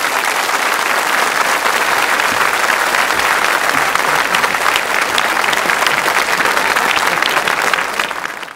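Live audience applauding at the end of a song: a dense, steady clapping that cuts off abruptly at the very end.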